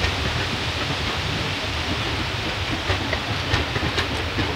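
Passenger train of coaches running away along the line: a steady rumble with a few sharp clicks in the second half.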